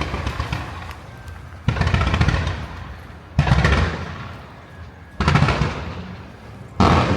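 Aerial firework shells bursting in a steady series, a loud boom about every one and a half to two seconds, each followed by a fading crackle and rumble.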